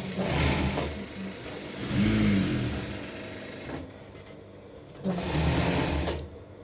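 Electric sewing machine running in three short bursts, its motor speeding up and slowing down each time, with quieter pauses between.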